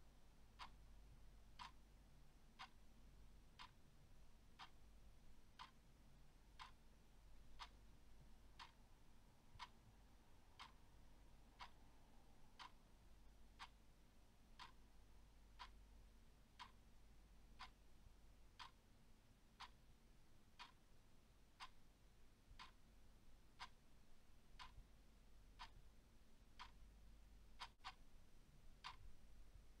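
Clock ticking steadily, about once a second, faint over a low hum.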